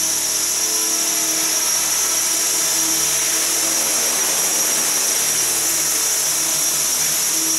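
Align T-Rex 450 SE V2 electric RC helicopter in flight: a steady, loud, high-pitched whine from its motor and drive, with the rotor's lower hum wavering slightly in pitch as it manoeuvres.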